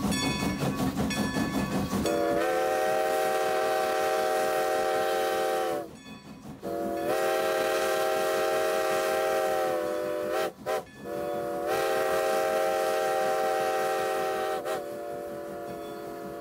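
A train whistle blown in several long blasts with short breaks between them, plus a brief toot or two, after about two seconds of a rapid, even rhythmic clatter of a train running.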